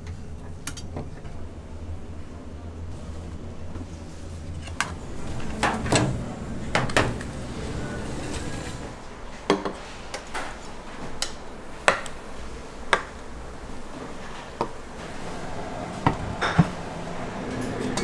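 Cutlery and dishes clinking at a restaurant table: a dozen or so sharp, separate knocks and clinks spread unevenly through the stretch, over a low steady hum that fades after the first few seconds.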